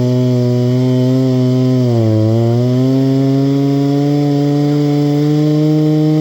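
Chainsaw engine running at high speed, dipping in pitch briefly about two seconds in, then climbing back up and holding a steady note.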